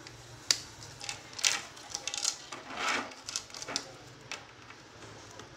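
A flat ribbon cable is unplugged from its connector on a Ricoh copier circuit board and handled. There is a sharp click about half a second in, then several short crinkly rustles and light plastic clicks as the cable is flexed and moved.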